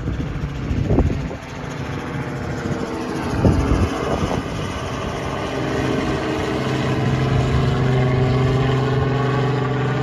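Tour helicopter flying overhead, a steady rotor and engine drone that grows louder over the second half. Two low thumps come about one and three and a half seconds in.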